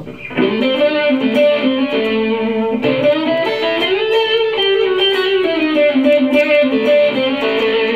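Electric guitar, mildly overdriven through a modelled Ibanez Tube Screamer with delay and reverb, playing a blues lead line of sustained notes, several bent up and back down. The playing starts about half a second in.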